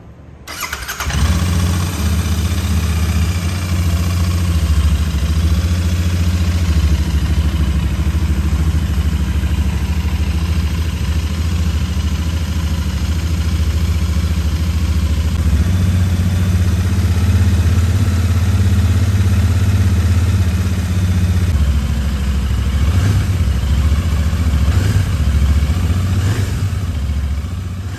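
Royal Enfield Continental GT 650's parallel-twin engine starting up about half a second in, then idling steadily with a low, even exhaust note. A few short revs come near the end.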